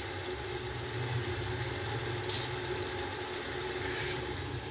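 A steady low hum, like a motor or burner running, with one sharp click a little over two seconds in.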